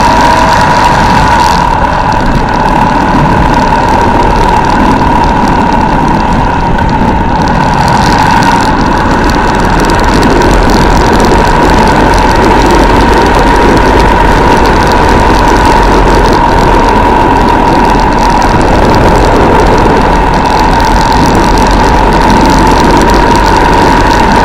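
Armstrong MT500 military motorcycle's single-cylinder four-stroke engine running steadily while riding along a road, heard from a camera on the bike. A steady high tone runs through it, over constant wind and road noise on the microphone.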